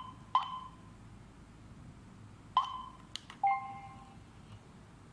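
Alarm control panel's touchscreen beeping at key presses: short, high beeps. About three seconds in comes a sharp click, then a slightly longer, lower two-tone beep, as the door sensor is paired to the panel.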